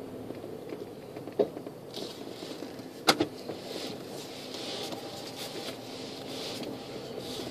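Steady low hum of a car rolling slowly, heard from inside the cabin. Two sharp clicks come a little under two seconds apart, the second the louder.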